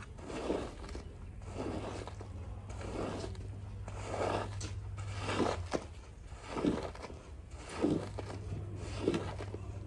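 Long-handled rubber squeegee pushed in repeated strokes through soapy water and foam on a wet rug, a wet swish roughly once a second. A steady low hum runs underneath.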